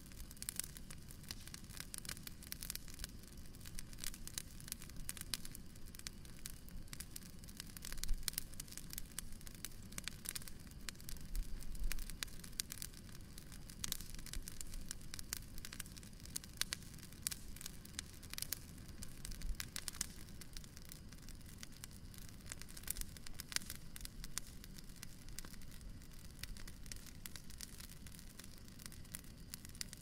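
Bonfire crackling steadily: a dense run of small pops and snaps over a low rush of burning, with a few louder pops about a third of the way in.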